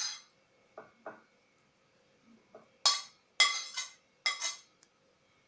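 Dishes clinking and scraping as sliced grilled chicken is slid off a plate into a ceramic salad bowl. It comes as a series of short, separate clinks and scrapes, loudest about three to four and a half seconds in.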